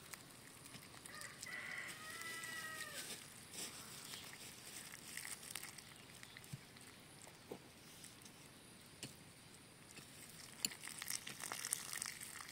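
A rooster crowing once, faint and distant, a single held call of about two seconds. Scattered light clicks follow near the end.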